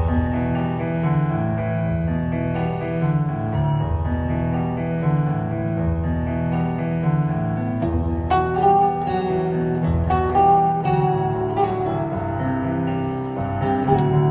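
Instrumental passage of a slow ballad played live, no singing: piano chords with guitar and strings, the plucked notes coming in more strongly about eight seconds in.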